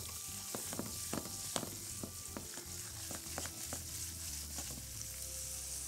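Small Egyptian sausage links and garlic cloves sizzling in hot oil in a frying pan: a steady hiss with many scattered pops and crackles.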